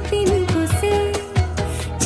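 Background music: an instrumental passage of a Hindi film song, a held, ornamented melody over a steady drum beat.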